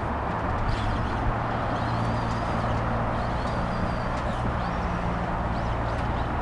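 An engine running at a steady speed, with birds chirping over it several times.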